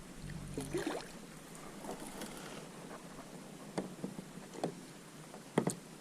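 Handling noises on a fishing kayak: rustling in the first second, then three short knocks against the boat, the last one the loudest, over a faint steady hiss.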